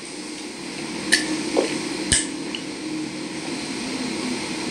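Steady low hum of cooking in a kitchen, with two sharp clicks of utensils against cookware, one about a second in and another about a second later.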